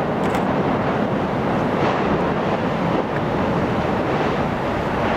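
Steady, loud rushing noise of strong wind buffeting the microphone.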